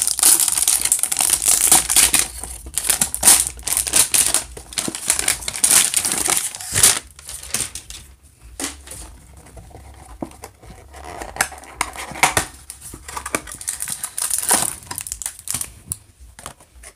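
Plastic wrapping and cardboard packaging of a trading-card hanger box crinkling and tearing as it is opened by hand, busy for the first several seconds with a sharp crack about seven seconds in, then sparser crackles.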